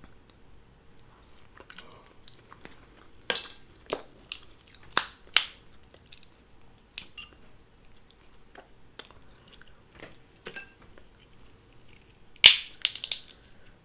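Cooked Dungeness crab leg shells being cracked and snapped apart by hand, with scattered sharp cracks and a loud cluster of them near the end; chewing of the crab meat in between.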